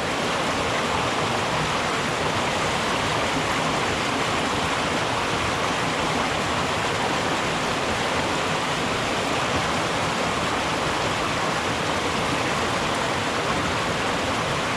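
Small mountain creek rushing steadily over rocks, a continuous even rush of water.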